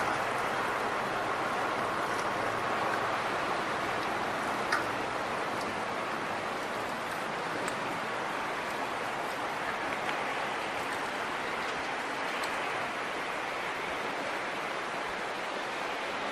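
Steady rush of flowing water, a mountain stream or river running in the valley, with a few faint clicks now and then.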